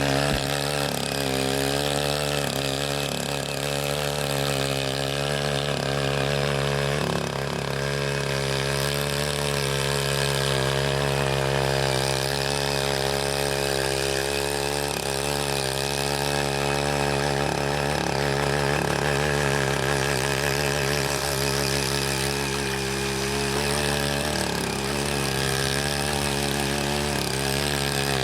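Small engine of a CY80 hand tiller running steadily at working speed as its rotary tines churn wet paddy soil, the pitch wavering a little as the load changes.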